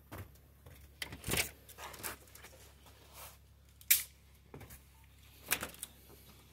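Footsteps and scattered sharp clicks and knocks as a house door is opened, the sharpest click about four seconds in.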